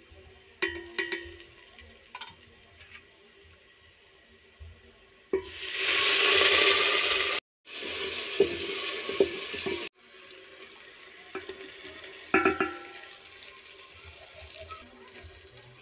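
Hot oil sizzling in an aluminium pot as fried onions and red chilli powder are stirred. A few sharp clinks come from the spoon against the pot. The sizzle surges loud about five seconds in and breaks off sharply twice, then goes on as a quieter steady hiss.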